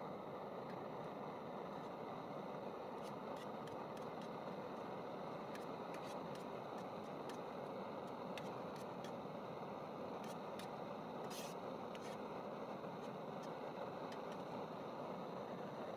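Light clicks and scrapes of small metal camp cookware being handled, with one longer scrape about eleven seconds in, over a steady background hiss.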